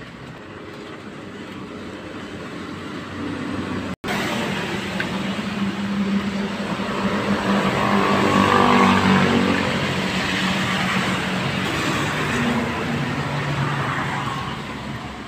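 A motor vehicle's engine running close by, growing louder to a peak about eight or nine seconds in and then slowly fading, as a vehicle passing.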